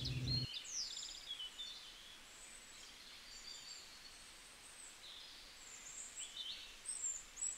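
Small birds chirping in short high notes, scattered and faint over quiet outdoor background noise, with a few louder calls in the second half.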